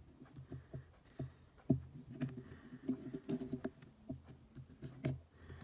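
Irregular light taps and clicks of an iPhone 6S's display assembly being pressed back into its frame, with handling noise. The sharpest clicks come at about a second and a half in and near the end.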